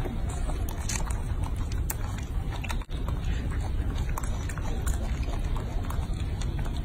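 Small wet clicks and smacks of a young macaque chewing fruit, over a steady low rumble. The sound briefly drops out about three seconds in.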